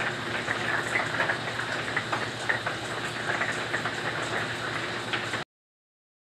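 Hurricane rain and wind: a steady hiss with a dense, irregular patter of raindrop ticks, cutting off abruptly about five and a half seconds in.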